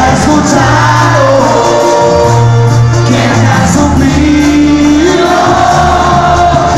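Live banda sinaloense music: brass band with tuba bass, trumpets, clarinets and drums playing loudly under a singer's voice.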